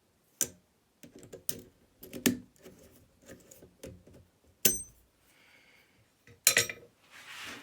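Scattered metallic clicks and clinks from handling a slider pump lock and its metal picking tools; one sharp clink about two-thirds of the way through rings briefly.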